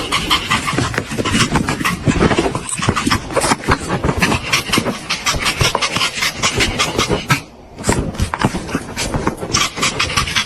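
A dog panting rapidly, with a brief pause about seven and a half seconds in.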